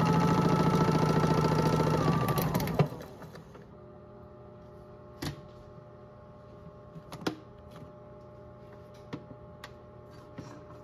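Toy washing machine's small electric motor spinning the drum fast with a steady whine, then winding down and stopping about three seconds in. After it stops, only a few faint clicks.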